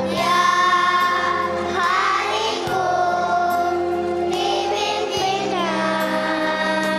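Choir of young children singing a song over instrumental backing music, with long held notes.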